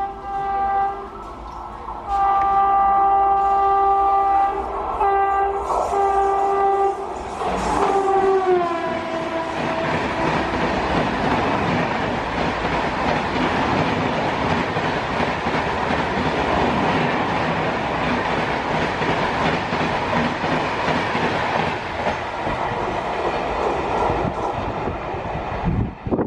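Indian Railways express train passing at speed: the electric locomotive's horn sounds in several blasts, the last one dropping in pitch as the locomotive goes by. Then comes a loud, steady rush of the coaches running past.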